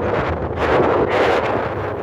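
Strong wind buffeting the microphone: a loud, continuous rumbling rush that swells and eases in gusts.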